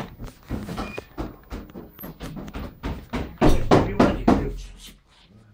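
Irregular knocks and scuffs, several a second, loudest a little past halfway and dying out about a second before the end.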